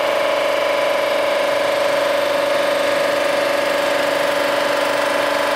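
Cylinder head resurfacing machine running steadily while resurfacing an aluminum Ford flathead cylinder head, with a constant whine at an even level.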